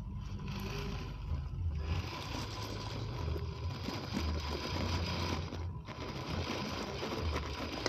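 1/10-scale RC rock crawler's electric motor and gear drivetrain whirring as it crawls slowly up a rocky slope, over a low uneven rumble.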